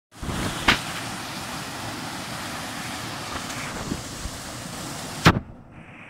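Steady rushing of a small woodland waterfall pouring into a pool, broken by two sharp clicks, the second and loudest about five seconds in. After it the rush turns quieter and duller.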